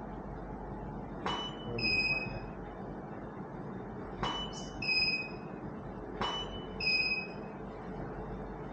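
Camera shutter clicks three times. Each click is followed by a two-note falling electronic beep, the ready signal a studio strobe gives once it has recycled after firing.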